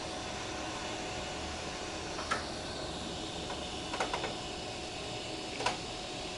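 Steady outdoor background hiss and hum, with a few short, sharp clicks: one about two seconds in, a quick cluster around four seconds, and one near the end.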